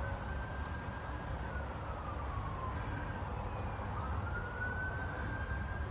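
A faint emergency-vehicle siren wailing, its pitch slowly rising and falling in long swells, over a low steady rumble.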